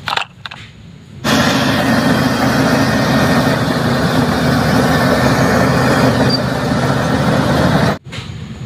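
Bulldozer engine sound effect: a heavy engine running steadily, starting abruptly about a second in and cutting off suddenly near the end.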